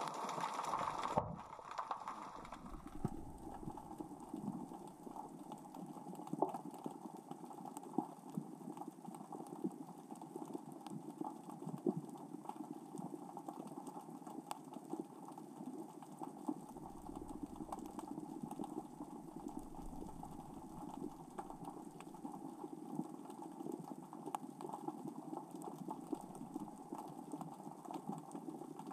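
Small rocks rolling and clicking across the seafloor as the current and tide move them, heard underwater: a steady crackle of many faint ticks. A louder hiss in the first second or so cuts off sharply.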